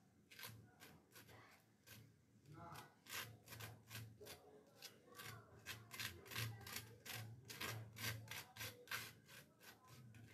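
Table knife scraping across a slice of toasted bread as it spreads it, in quick repeated strokes, several a second, with short pauses between spells.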